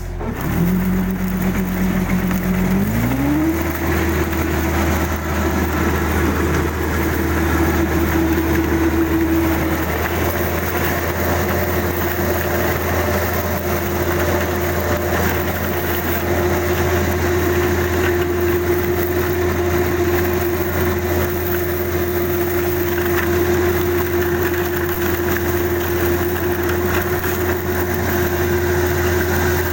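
Kubota DC-35 combine harvester's diesel engine running. Its pitch rises as it speeds up about three seconds in, then it holds steady at the higher speed.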